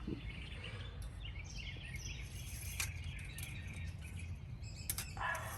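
Small birds chirping on and off over a steady low outdoor rumble, with a couple of faint clicks about three and five seconds in.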